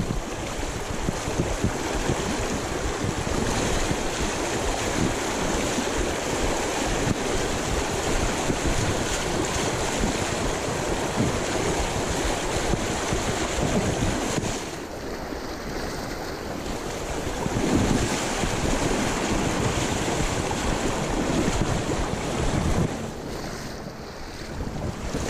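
Clear, shallow creek water rushing over rocks in a riffle, a steady hiss of running water, with wind buffeting the microphone. It eases for a few seconds about two-thirds of the way through and again near the end.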